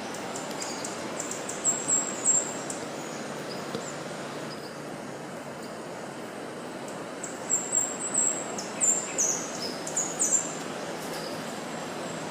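Birds chirping in short, high, thin notes, in two bursts, one near the start and a longer one in the second half, over a steady rushing outdoor background.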